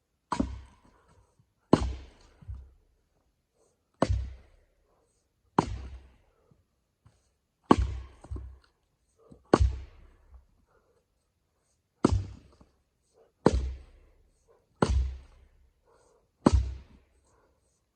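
Fiskars splitting axe striking tamarack firewood rounds: about ten sharp thunks, one every one and a half to two and a half seconds, a few followed quickly by a second, lighter knock.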